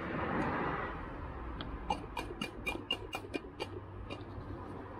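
Loose Mercedes-Benz plastic wheel center cap clicking as a finger presses it in and out of its seat in the alloy wheel: a quick run of about ten sharp clicks, starting about two seconds in. The clicking marks a cap that sits too loosely in the wheel and could fall out at any time.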